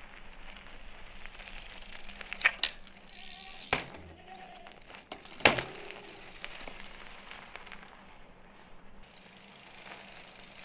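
Mountain bike being manoeuvred on an icy, gritty car park: tyres crackling and scraping over the ice, with a few sharp knocks, the loudest about five and a half seconds in, and a brief squeak a little after three seconds.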